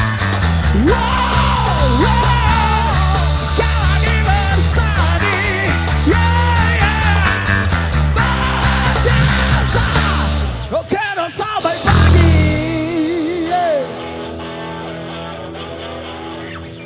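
Live rock and roll band playing: a full band with melodic lead lines over bass and drums. About ten seconds in the music breaks off with a few loud hits, then drops to a quieter passage of held notes.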